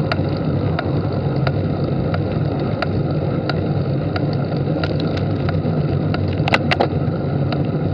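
Carbon road bike climbing in the small chainring, giving a sharp tick about every two-thirds of a second, with a few louder clicks near the end, over steady wind and road rumble. The tick is an unexplained noise that comes on when the bike is pushed up the climb.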